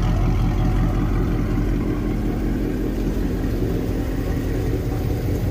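Dodge Charger Scat Pack's 392 (6.4-litre) HEMI V8 idling steadily, a deep even rumble.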